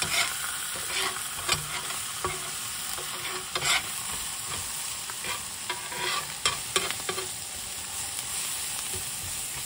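Burgers and onions sizzling on a cast iron griddle, with a slotted spatula scraping and tapping the griddle at irregular moments as the onions are stirred through the burger juices.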